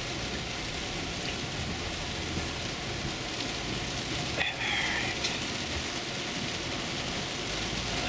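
Heavy rain drumming on a 2010 Toyota Camry's roof and windshield, heard from inside the cabin as a steady hiss. A windshield wiper sweeps across the wet glass about halfway through.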